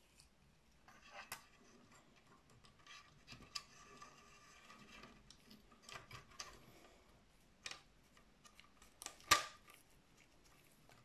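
Plastic scale-model tank track and running gear being handled and fitted onto a kit's lower hull: faint scattered clicks and rubbing, with the sharpest click about nine seconds in.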